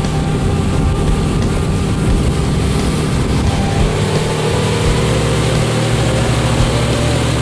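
Fishing boat's engine running steadily, a loud continuous drone.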